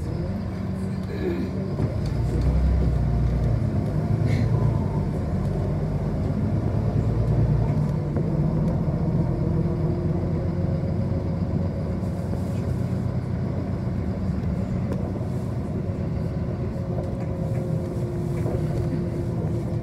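City bus driving, its motor and road rumble heard from inside the passenger cabin. It swells louder for several seconds from about two seconds in, then settles.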